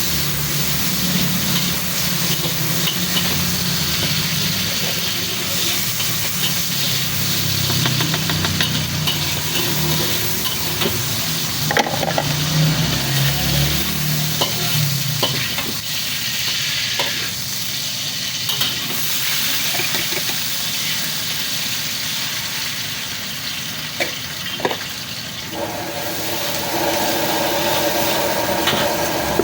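Food stir-frying in a hot wok: steady sizzling with scattered sharp clanks and scrapes of the spatula against the pan. A steady hum joins in near the end.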